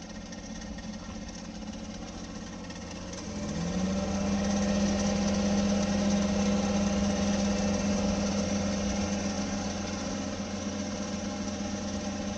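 Daihatsu Mira Avy's three-cylinder 660 cc engine running, with a strong steady tone that comes in about three and a half seconds in, rises briefly and then holds as the sound gets louder. This is the abnormal engine-bay noise that shows up when the car is cold, which the owner calls a "jari-jari" rasp; its cause is not yet known.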